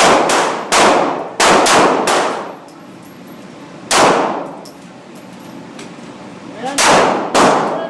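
Gunshots, each ringing out and dying away: a quick run of five in the first two seconds, a single shot about four seconds in, and two more near the end.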